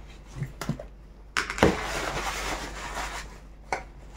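Small objects handled on a table: a few light clicks and knocks, with about two seconds of rustling in the middle as a disposable cloth is handled and the cap comes off a bottle of wood oil.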